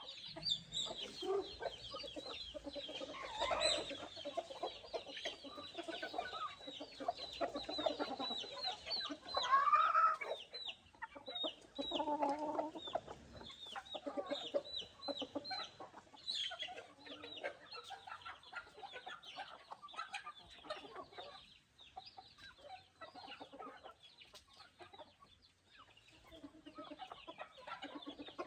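Backyard chickens clucking, with a constant run of short, high, falling chirps over low clucks. One louder, drawn-out call comes about ten seconds in.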